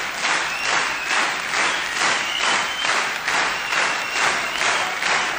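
Chorus of night insects chirping in an even, pulsing rhythm of about three pulses a second, with a faint thin high tone running over it.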